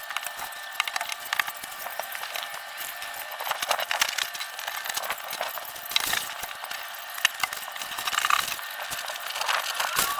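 Hand tools and metal parts clicking and clinking in irregular small knocks, from work on a rooftop furnace unit's inducer fan motor.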